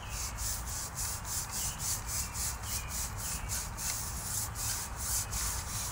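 Water-fed pole brush scrubbing a wet window screen in quick back-and-forth strokes, about three a second, the bristles rubbing over the mesh as water sprays from the brush.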